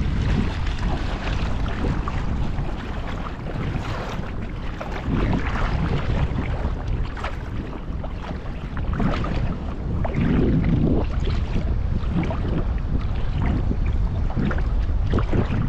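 Gusty storm wind buffeting the microphone in a heavy low rumble, over the splashing and sloshing of moving water.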